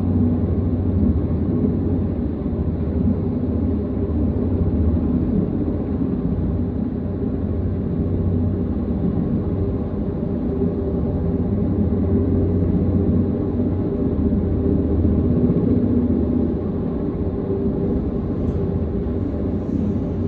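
Sikorsky S-58 helicopter hovering overhead with a slung load, its rotor and engine running in a steady, deep rumble.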